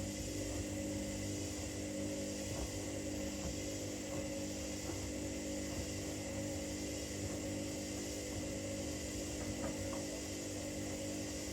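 Washing machines running mid-cycle: a steady motor hum with several held tones and a few faint clicks.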